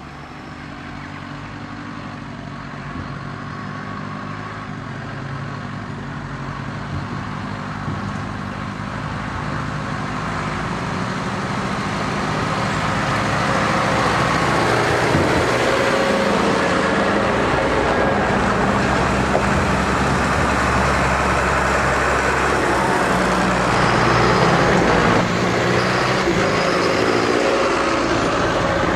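John Deere 6330 Premium tractor pulling a trailer, its diesel engine running steadily and growing louder over the first half as it approaches, then staying loud as it passes close by.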